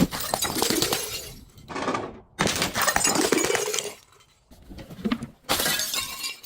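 Glass breaking and crunching in four or five separate bursts of crackling, each about half a second to a second and a half long.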